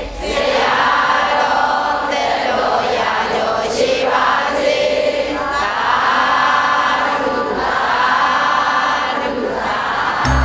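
A large congregation of Buddhist lay devotees chanting together in unison, in long drawn-out phrases. Right at the end, music with a heavy bass cuts in.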